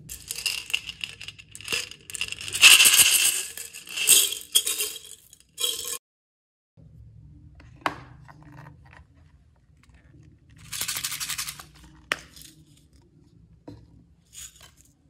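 Slime being mixed and squished with small hard add-ins, crackling and clinking in uneven bursts, loudest about three seconds in. The sound cuts out completely for under a second about six seconds in, then comes back as a few sharp clicks and one more short crackling burst.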